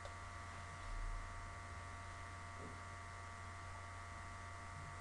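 Steady low electrical hum with a few thin high whining tones and faint hiss, and a soft low thump about a second in.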